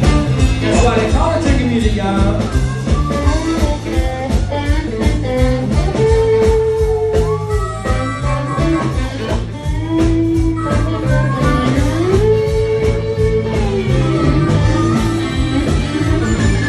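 Live band playing a blues number, loud and unbroken: drums keep a steady beat under a bass line, and a lead line plays long held notes that bend up into pitch and slide away.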